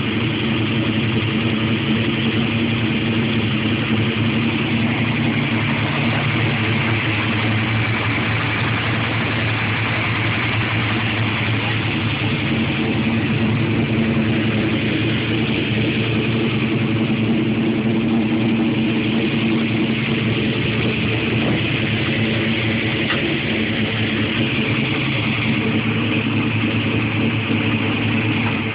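A 1971 Chevrolet Monte Carlo's 406-cubic-inch Chevrolet V8, built on a Dart aftermarket block to make over 550 hp, idling steadily.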